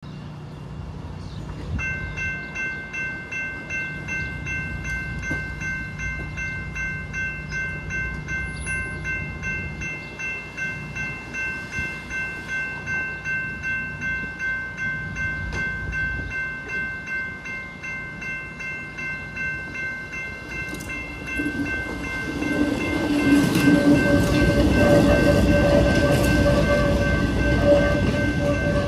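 Railroad crossing warning bells start about two seconds in and ring in a steady rhythm of about two strikes a second. After about twenty seconds a CTA Yellow Line electric rapid-transit train rolls through the crossing, its rumble and motor hum growing to the loudest sound near the end while the bells go on ringing.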